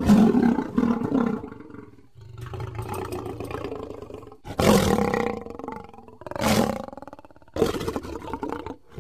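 Lion growling and roaring in a string of separate bursts, each a second or two long, several of them starting or stopping abruptly. The loudest bursts come at the very start and about halfway through.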